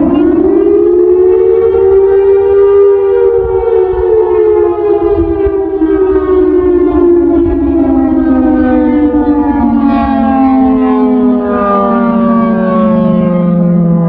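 Siratone EOWS 612 electronic siren, pitched down by half, sounding the attack signal as a slow wail. The tone climbs over the first two seconds, then slides slowly down for about ten seconds and holds at its low pitch near the end, over a low rumble.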